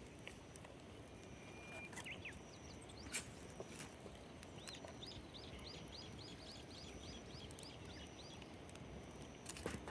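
A bird calling a quick run of about a dozen repeated, evenly spaced chirps, about three a second, over a steady outdoor hiss. A few sharp cracks sound through it, one about three seconds in and one near the end.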